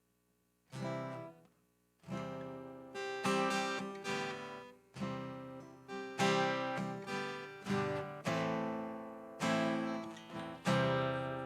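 Acoustic guitar strumming chords: one strum under a second in, then after a short gap a steady run of strums, each ringing out and fading before the next.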